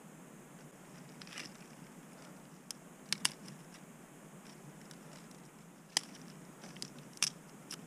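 Thin dry twigs snapping as they are broken by hand and laid as kindling for a campfire. There are several separate sharp snaps, a couple in quick succession, with quiet handling between them.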